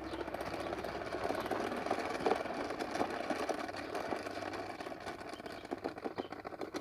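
Toy bubble lawnmower being pushed along: its small motor whirs and its mechanism rattles quickly and steadily while it blows bubbles.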